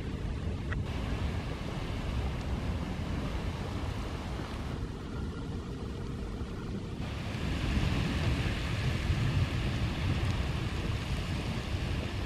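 Cone geyser in full eruption: a steady rushing hiss of water and steam jetting from its vent, with a low rumble underneath.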